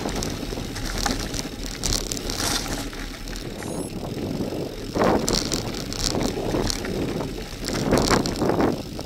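Bicycle tyres crunching over loose gravel and stones at speed, with the bike rattling on the rough surface and wind noise on the microphone. Harder jolts come about five and eight seconds in.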